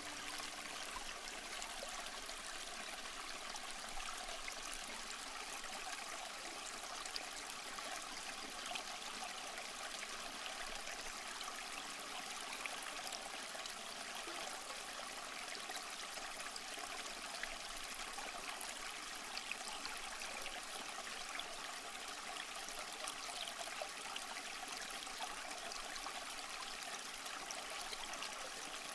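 Home aquarium water bubbling and trickling steadily, with faint ticks, from the air bubbles rising through the tank and the filter's water flow.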